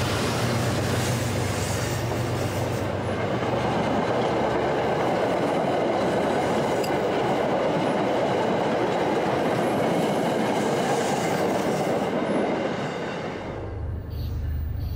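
MBTA commuter train's bi-level coaches passing close by at speed, a loud steady rush and rumble of wheels on the rails. It fades off about thirteen seconds in, leaving a lower steady hum.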